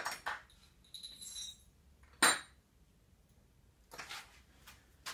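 Small metal bicycle headset parts (bearing cups) being handled and set down, clinking several times. The loudest is a sharp clink about two seconds in that rings briefly.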